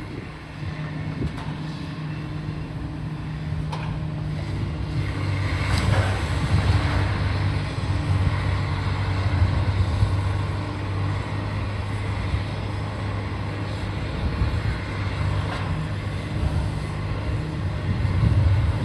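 Heavy diesel machinery running steadily, most likely a demolition machine's engine, with a few sharp knocks or cracks about four and six seconds in.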